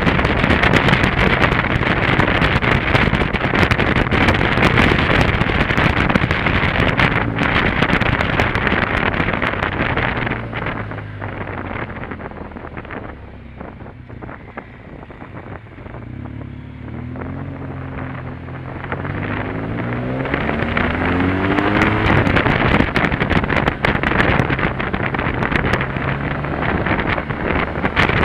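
Wind noise on the microphone over a BMW R 1200 GS Adventure's flat-twin engine while riding. About halfway through, the wind eases as the bike slows through a hairpin and the engine note comes through. The engine then rises in pitch as it accelerates away, and the wind builds back up.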